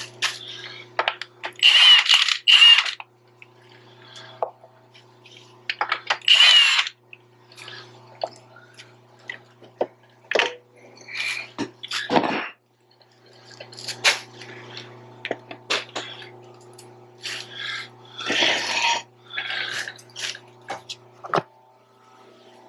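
Tool work on the steel parts of a roller's chain case and spring-loaded chain tensioner: scattered metal clanks and knocks, and three short bursts of a power tool, about two seconds in, about six seconds in and near the end, over a steady low hum.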